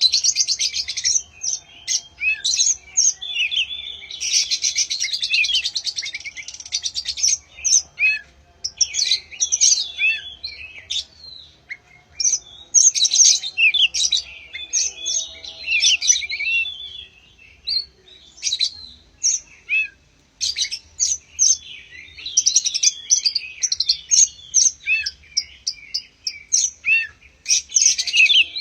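Oriental magpie-robin (kacer) singing a long, varied song of quick high whistles and chattering phrases, in bursts with short pauses between them. This is the kind of song used as a 'pancingan' to prompt other songbirds to sing.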